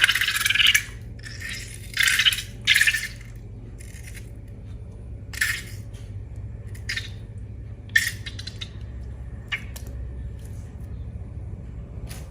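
Hands handling slime-making materials: three short bursts of scraping, rattling noise in the first few seconds, then scattered light clicks and taps, over a steady low hum.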